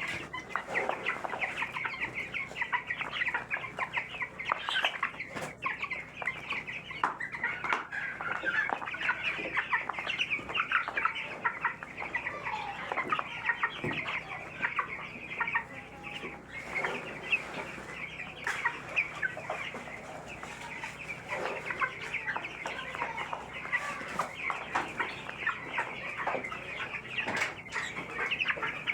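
A flock of young broiler chicks in a brooder peeping continuously, many short high calls overlapping into a steady chorus.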